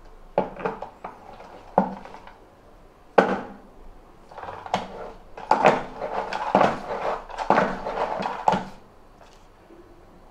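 Hard plastic knocks and clatter from an A72 spin mop and its bucket as the mop head is pushed down into the spin basket to engage the lock, then longer rattling stretches as the handle is worked to spin and wash the mop cloth. The sharpest knocks come about half a second, two seconds and three seconds in.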